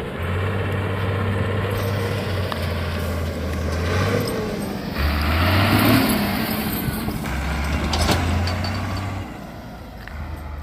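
Off-road vehicle engine running, its low drone shifting in pitch several times, with a rushing noise that swells in the middle and fades, before the sound drops off near the end.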